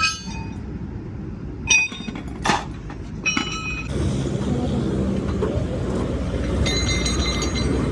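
Several ringing metal clinks of steel parts and tools being struck or knocked together during truck axle and leaf-spring repair, a second or two apart, with a longer ringing stretch near the end, over a steady low rumble of traffic and engines.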